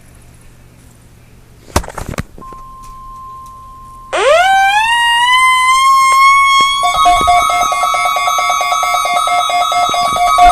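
Electronic alert tones. A few clicks and a steady beep come about two seconds in, then a loud tone sweeps up in pitch and holds. It is joined past the middle by lower tones pulsing on and off, siren-like.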